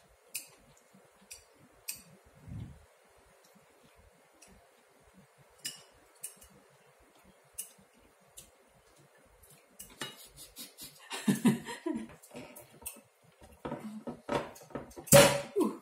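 Chopsticks and cutlery clicking against china plates and bowls at a meal: scattered single clicks at first, then a denser clatter of dishes being handled from about eleven seconds in, with one sharp loud click near the end.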